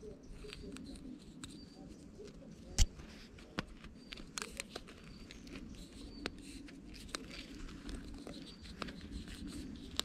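Hands tearing and squeezing soft bread into groundbait balls: small crackling and rustling handling noises, with one sharp tap about three seconds in.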